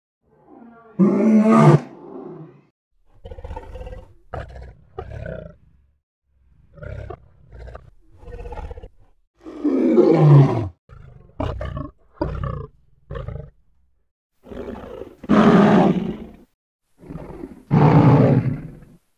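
Lion roaring: four loud, deep roars about a second long each, the one in the middle falling in pitch, with shorter, quieter grunting calls between them.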